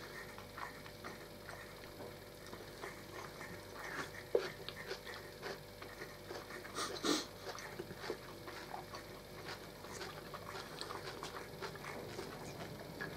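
Quiet eating sounds: chewing and mouth noises with scattered light clicks of forks against plates, a couple of them louder about four and seven seconds in.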